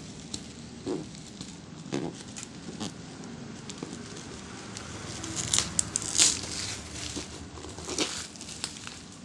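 Plastic courier pouch crinkling and rustling in the hands as the parcel is turned over, with the loudest crinkling about six seconds in.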